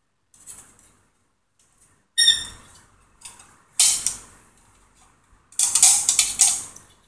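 Metal flat bars and bolts clinking and rattling while being handled and fitted together by hand: a few separate clanks, one with a brief metallic ring about two seconds in, and a longer rattle near the end.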